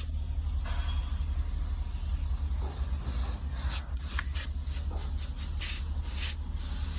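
6.6 L Duramax V8 diesel cranking over without starting, a steady pulsing low rumble with repeated bursts of hissing: a crank-no-start caused by a leaking injector.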